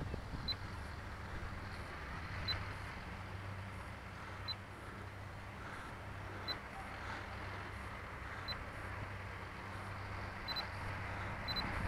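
Wind on the microphone with a short, high electronic beep about every two seconds, which turns into quick double beeps near the end.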